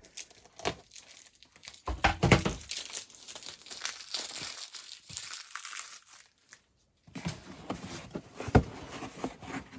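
Packaging crinkling and rustling as it is handled, likely while shoes are unpacked from a bin or box, with a few sharp knocks. It pauses briefly about two-thirds of the way through.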